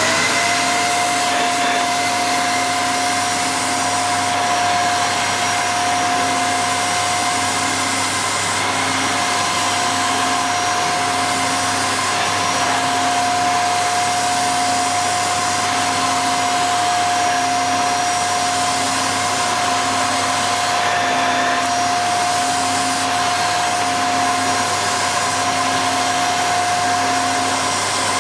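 Hoover Xarion bagless cylinder vacuum cleaner running steadily at full power, a rushing airflow with a steady high motor whine over it.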